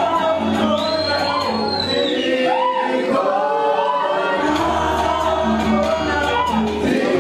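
Live vocal music: several voices singing together in harmony into a PA, over a low held bass note that drops out for a couple of seconds in the middle.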